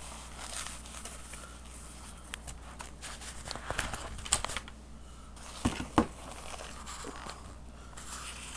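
Rustling and clicking as a handheld GPS unit is taken out of its fabric carrying case, with two sharp knocks about two-thirds of the way through.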